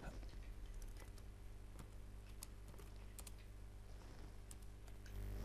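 Faint computer keyboard keystrokes and mouse clicks, scattered single taps, over a steady low hum.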